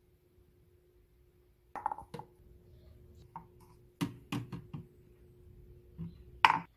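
Ceramic mugs handled and set down on a granite countertop: scattered knocks and clinks in small groups about two, four and six seconds in, the loudest near the end, over a faint steady hum.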